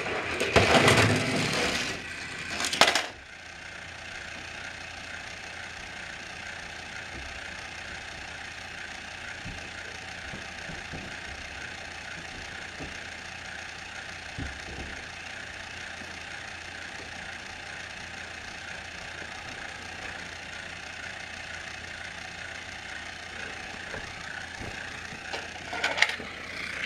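Loud plastic clattering and rattling for the first few seconds, then a small battery-powered toy train motor whirring steadily. Clicks and rattles return near the end as a hand handles the toy.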